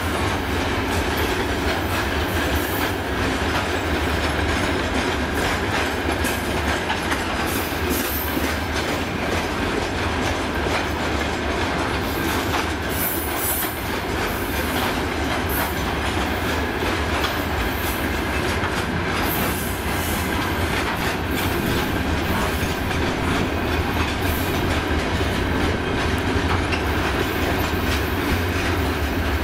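Freight train of covered hopper wagons rolling past: a steady rumble of steel wheels on rail with a continuous clickety-clack of wheels over rail joints, and a faint steady high whine from the wheels.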